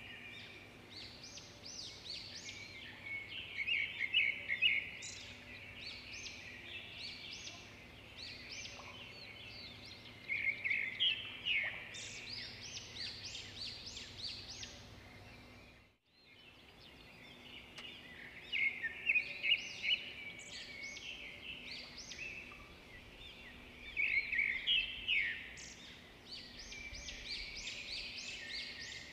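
A chorus of high, chirping bird calls that swells in bursts. About halfway through it drops suddenly to silence, then the chirping resumes.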